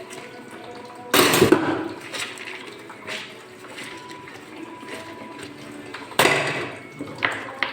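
Dishes being washed by hand: plates and utensils clattering against each other and the sink over running water, with a loud clatter about a second in and another around six seconds.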